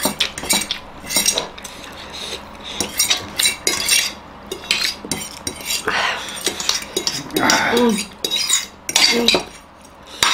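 Metal forks clinking and scraping against plates in irregular taps throughout, with a couple of brief mouth sounds of eating around the middle.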